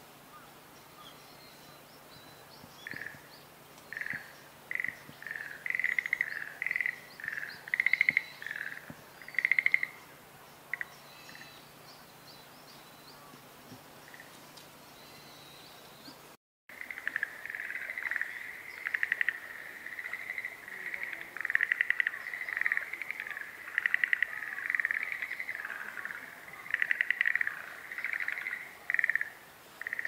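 Schlegel's green tree frogs calling: short, rapid rolling trills repeated in bursts, spaced apart at first, then after a brief break about halfway running almost without pause as several overlap. Faint high chirps sit above them in the first half.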